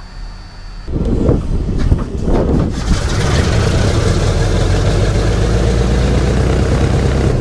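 Restored B-29's Wright R-3350 radial engines running on a first engine test, cutting in loud about a second in. They run unevenly with sharp spikes for a couple of seconds, then settle into a steady heavy drone.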